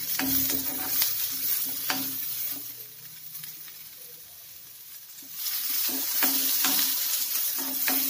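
Sliced onions sizzling in hot oil in a kadai while a metal spatula stirs them, scraping and tapping against the pan now and then. The sizzle drops away for a couple of seconds midway, then picks up again.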